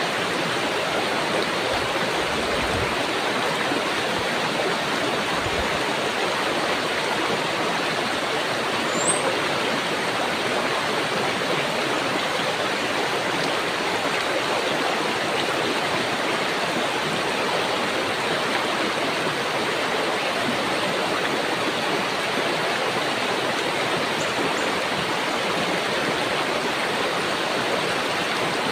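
Shallow rocky river running over stones: a steady rush of flowing water. A single brief high chirp about nine seconds in.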